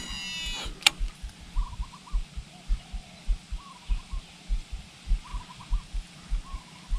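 A cast on a DC baitcasting reel: the spool's electronic brake gives a quick whine, wavering up and down for under a second, and it ends in a sharp click about a second in. The lure is then reeled back with a soft rhythmic thumping about two to three times a second, while a bird calls repeatedly.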